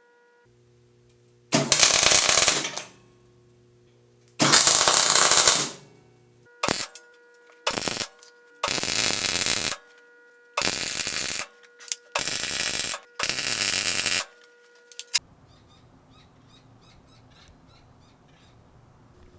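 A hand spray bottle spraying a diluted liquid in about eight separate hissing bursts, each lasting up to a second or so. After them come a few seconds of faint ticking.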